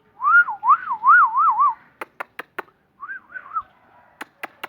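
Pet myna whistling: a warbling whistle that swings up and down in pitch about five times, then a shorter warble of the same kind, with a few sharp clicks in between.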